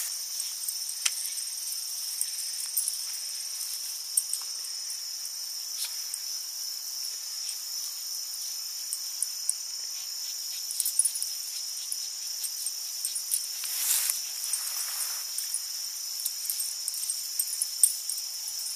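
Steady high-pitched insect chorus with scattered small clicks, and a brief rustling noise about fourteen seconds in.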